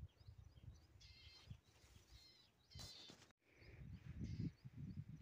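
Faint, high-pitched animal calls repeating over near silence. In the second half, wind rumbles low on the microphone.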